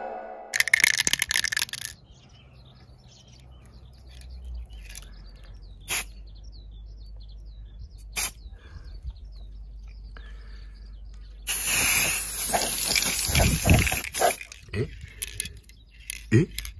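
Aerosol lacquer spray can hissing in one steady spray of about two and a half seconds, with irregular knocks and handling noise after it and birds chirping faintly in the background.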